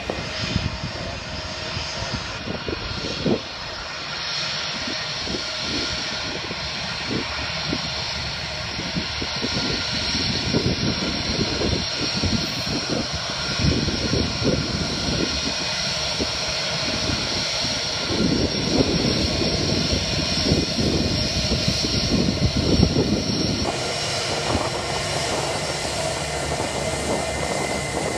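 Jet engines of a Turkish Airlines twin-jet airliner running on the ground with a steady whine, growing a little louder past the middle as the aircraft comes nearer. Wind buffets the microphone with low rumbling gusts.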